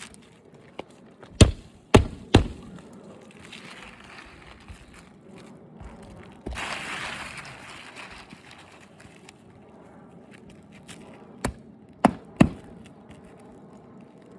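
Nails being driven on a roof: two sets of three sharp strikes about half a second apart, one set a little after the start and one near the end, with a brief rushing noise in between.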